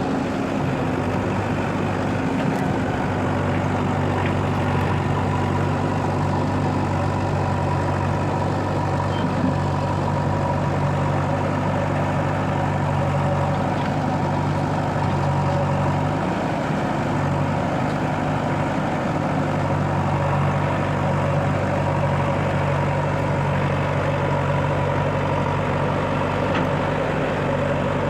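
Heavy diesel engine running steadily at an even speed, with a low, constant hum.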